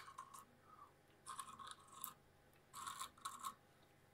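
Motorised faders on an Allen & Heath dLive console whirring in three short bursts as they slide on their own, driven remotely from another console.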